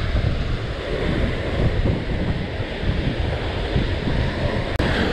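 Wind buffeting the microphone over the steady wash of small waves breaking on a sandy beach, with a short click near the end.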